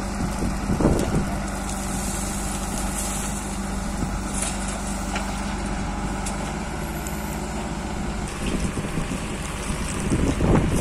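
Backhoe loader's diesel engine running steadily at close range while loading gravel into a tipper truck, with a few short knocks. Louder rough wind noise on the microphone near the end.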